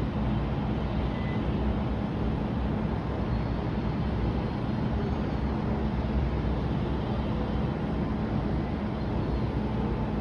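Steady low rumble of city background noise, like distant traffic, with a faint steady hum.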